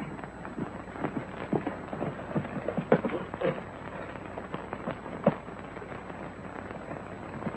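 Hoofbeats of several horses on rocky ground as riders come in and pull up, a dense clatter in the first few seconds that thins out to a few scattered knocks, over the steady hiss of an old film soundtrack.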